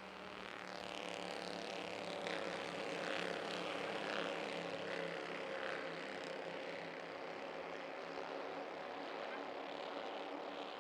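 Bandolero race cars running at speed on the track, their engines droning in a steady, multi-toned hum that swells for a few seconds as the pack goes by.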